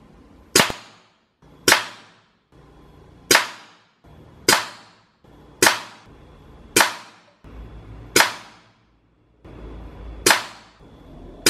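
A .25-calibre (6.35 mm) Norica Dark Bull PCP bullpup air rifle firing eight shots in a row, about one every one to two seconds, each a sharp crack that fades quickly.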